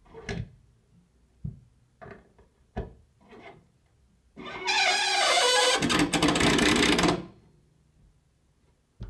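Builders' banging heard through the ceiling from the flat above: about five short knocks, then about four seconds in a pneumatic drill starts suddenly and runs loudly for about three seconds before stopping.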